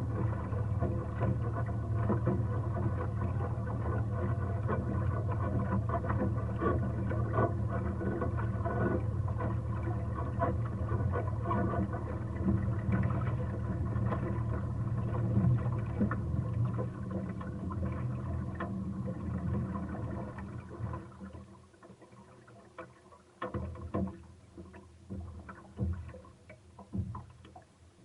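Boat engine running steadily under way, then stopping about three quarters of the way through, followed by a few scattered light knocks.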